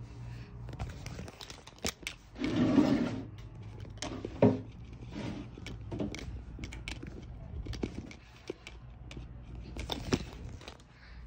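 Scattered knocks, rubs and scrapes from close handling. One louder scraping rustle comes about two and a half seconds in, and a sharp knock follows about two seconds later.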